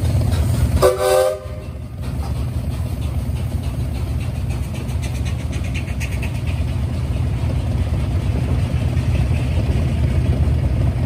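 Short blast of the Mary Ann steam locomotive's whistle, about half a second long and about a second in, over a steady low rumble.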